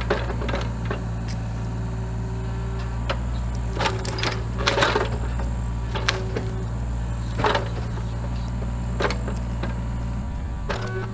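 Mini excavator engine running steadily under load, with a hydraulic whine that comes and goes and several sharp knocks and cracks as the bucket works at a tree stump.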